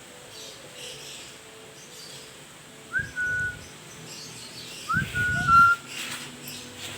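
Short whistled notes: one about three seconds in and a pair about five seconds in, each a quick upward slide into a held steady tone, the last stepping slightly lower. Low dull rumbling sounds come with each whistle.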